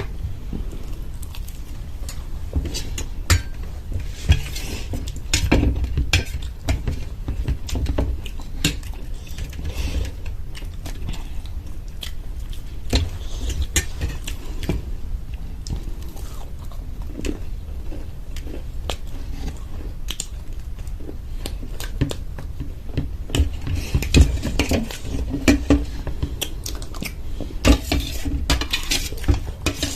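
Spoons or cutlery clinking and scraping against plates, with chewing, as samosas with gravy are eaten; many short irregular clicks throughout.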